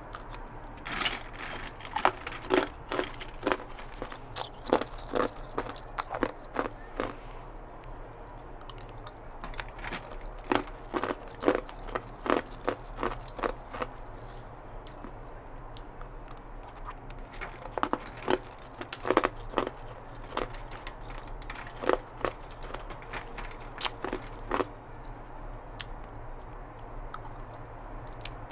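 Ice cubes bitten and crunched between the teeth close to the microphone: a string of irregular sharp cracks and crunches with chewing between, easing off in a couple of short lulls.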